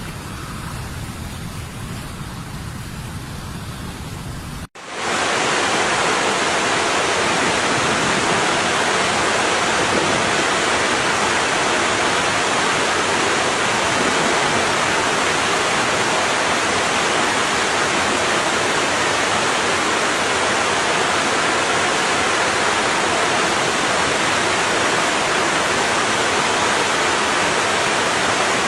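Waterfall: the steady rush of falling water. About five seconds in, the sound cuts abruptly from a quieter, deeper rush to a louder, brighter one that holds steady.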